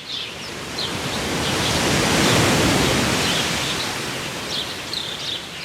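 A rushing noise that swells to a peak about midway and then fades, with small birds chirping near the start and again near the end.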